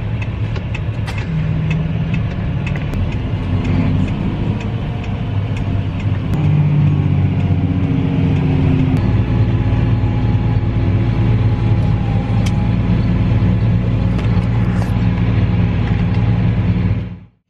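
Tractor engine running steadily while pulling a grain drill through the field. The engine note gets a little louder partway through, then the sound cuts off abruptly near the end.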